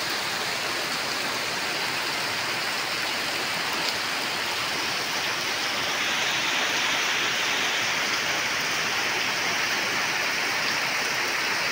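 Heavy tropical downpour: rain falling steadily in a dense, even hiss, growing a little heavier about halfway through.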